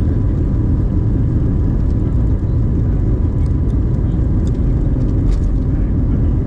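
Cabin noise inside an Airbus A321neo taxiing on the ground: a steady low rumble from the engines and wheels, with a faint steady hum and a few light clicks about halfway through.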